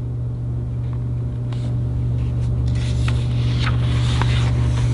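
Paper rubbing and scraping as a book page is turned, over a steady low hum.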